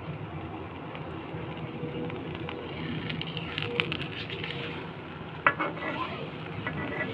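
Batter paratha frying in a little oil in a pan, sizzling steadily. A few sharp knocks of a spatula against the pan come through the middle and near the end.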